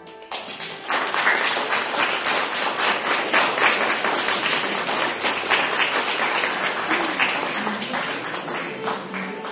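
Audience applauding: a dense round of hand clapping that begins right away and slowly tapers off toward the end.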